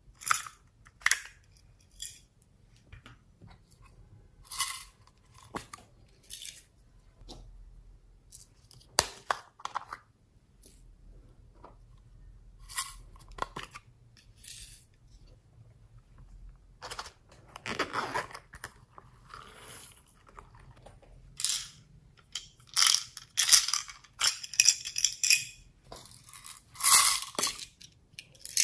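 Small plastic pencil-sharpener cases being handled, with irregular clicks and snaps of the plastic lids and rattling of small beads and sequins as they are shaken and tipped out onto slime. The rattling is thickest and loudest in the last few seconds.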